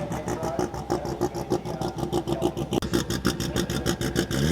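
Engine of a 2700 hp Holden Commodore drag car idling with a hard, even chop of about nine beats a second, then starting to rev up right at the end.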